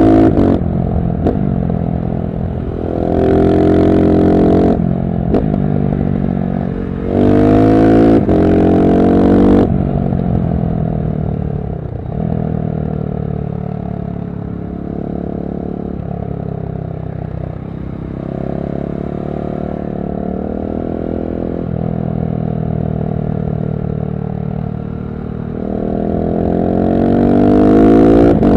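KTM SMC-R 690's single-cylinder engine through a LeoVince One Evo slip-on exhaust with dB-killer, revving up hard twice in the first ten seconds. It then runs lower and steadier, and opens up again near the end.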